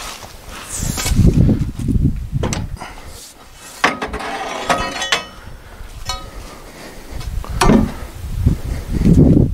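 Metallic clinks, knocks and a short ringing scrape, from metal parts being handled while the log is set up on the sawmill. Gusts of wind buffet the microphone.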